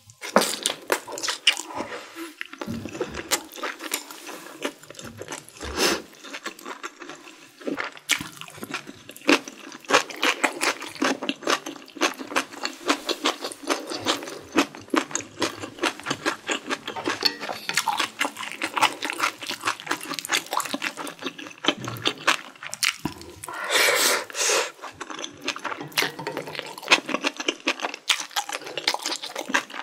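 Close-miked chewing of spicy stir-fried mala xiang guo with glass noodles and shrimp: a steady run of wet, sticky mouth clicks and smacks.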